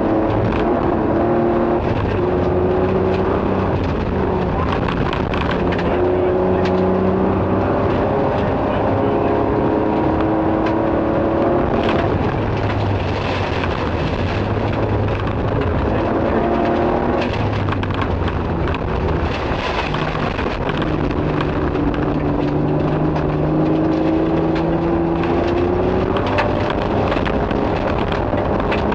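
Nissan Skyline rally car engine heard from inside the cabin under hard acceleration. It rises in pitch through each gear and drops back at each shift, several times over. Steady tyre and gravel noise with short clattering clicks runs underneath.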